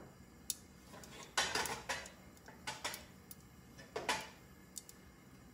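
A few separate light clinks and clatters from a wok holding rock sugar crystals in heating oil, the two loudest about one and a half and four seconds in.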